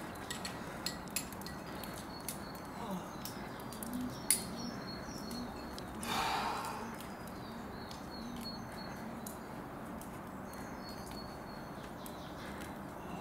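A climber clipping the rope and moving on the rock: scattered small clicks and scrapes of gear, shoes and hands, thickest in the first four seconds with a sharper click a little after four seconds. A short breathy rush comes about six seconds in, over a faint steady outdoor hiss.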